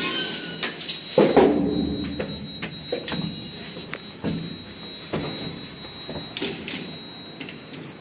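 Collapsible metal scissor-grille lift gate being pulled along its track by hand, rattling and clanking, with the loudest clatter about a second in and several sharper clanks after.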